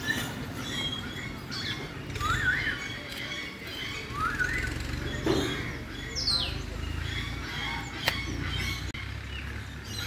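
Birds calling: scattered short chirps and whistles, one wavering, one rising and one steeply falling, over a low steady background rumble. A single sharp click comes about eight seconds in.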